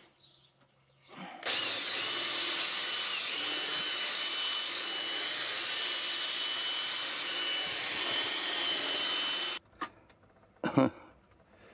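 Small handheld power drill spinning up and boring into a weathered wooden post, running steadily with a high whine for about eight seconds, then cutting off suddenly. A couple of short knocks follow near the end.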